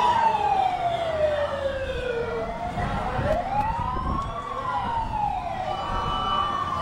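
Fire truck siren wailing in slow rising and falling sweeps, about two cycles, over a rumble of background noise.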